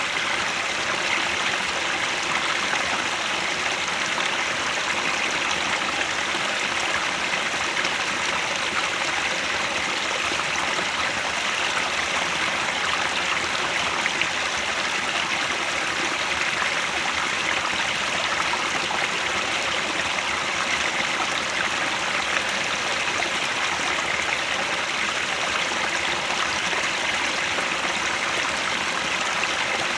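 A mountain stream near its source, water rushing and splashing over rocks in a steady, unbroken flow.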